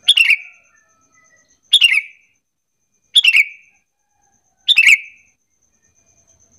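Sooty-headed bulbul calling: four short, loud calls about a second and a half apart, each a quick falling note.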